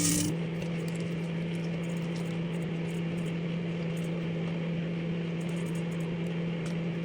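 Microwave oven running with a steady electrical hum while metal wall anchors inside it arc, giving a brief crackling burst right at the start and scattered faint snaps after that.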